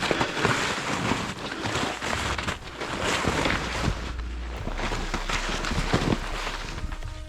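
Wind buffeting the microphone in uneven gusts, with a low rumble.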